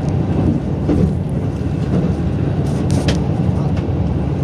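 Running noise of the Yufu limited express, a diesel train, heard from inside the carriage: a steady low rumble from the wheels and engine. A few brief clicks come about three seconds in.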